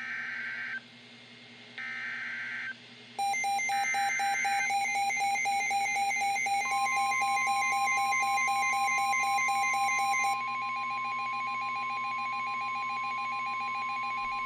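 NOAA Weather Radio emergency alert: the SAME header's three short bursts of warbling data tones, then a fast-pulsing electronic alarm beep, joined about seven seconds in by the steady 1050 Hz warning tone that runs on under it. Together they signal that a Special Marine Warning is about to be read out.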